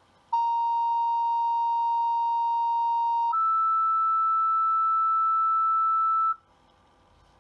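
Two-tone sequential paging tones over the fire dispatch radio: a steady lower tone for about three seconds, then a steady higher tone for about three seconds, cutting off suddenly. The tone pair alerts the volunteer fire company's pagers to a call.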